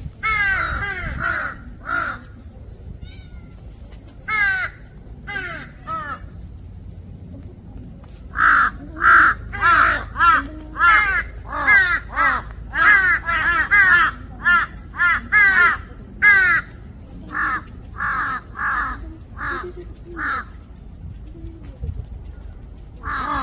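Crows cawing over and over while they mobb a cat. A few calls come at the start and again about four to six seconds in. Then a long run follows at about two caws a second from about eight to twenty seconds in, and one last caw comes at the very end.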